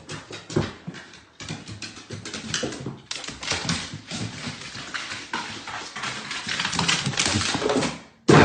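A dog, heard among many irregular clicks and knocks.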